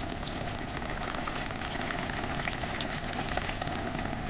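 Liquid in a large pot of beef clear broth being heated: a steady, splashy hiss of bubbling, peppered with many small pops.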